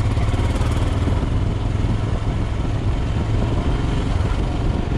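Royal Enfield Himalayan's 411 cc air-cooled single-cylinder engine running steadily as the motorcycle is ridden at low speed.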